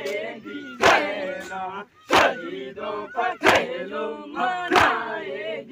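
Mourners doing matam, palms striking their chests together in a slow beat, four sharp slaps about 1.3 seconds apart. A group of men's voices chants between the strikes.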